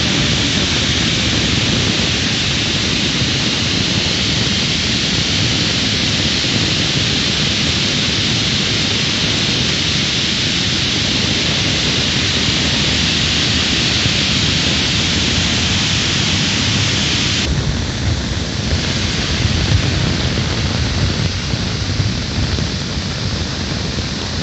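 Steady, loud rush of muddy floodwater pouring over a rock face in a torrent, mixed with heavy rain. A little past halfway the hiss softens slightly while the low rumble carries on.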